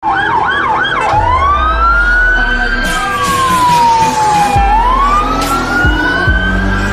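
Electronic police siren on an unmarked motorcade escort car: a fast yelp for about a second, then a slow wail rising, falling and rising again. Car engines and tyres pass close by underneath.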